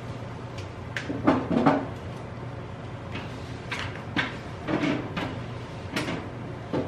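Kitchen clatter: a string of separate knocks and bumps from cupboard doors and cookware being handled, about nine in all, over a steady low hum.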